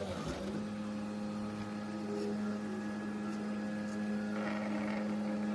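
FDM 3D printer's stepper motors running while it prints, a steady low whine with even overtones that sets in about half a second in.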